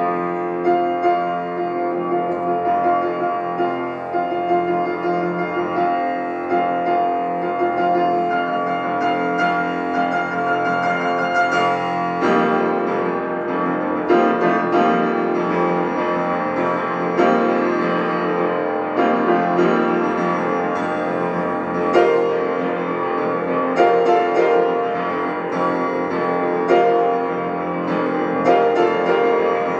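Shigeru Kawai grand piano played solo: a dense, continuous flow of sustained notes and chords. From about twelve seconds in, sharper struck chords recur every second or two.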